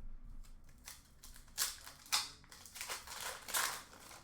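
Hockey card packs being opened and handled: several short bursts of crinkly tearing and rustling from foil wrappers and cards, with a longer stretch near the end.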